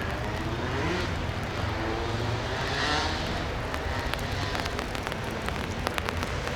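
Airbus A319 jet airliner passing on its landing approach: a steady rumble with engine tones that slide in pitch as it goes by, loudest about halfway through. Several sharp clicks in the second half.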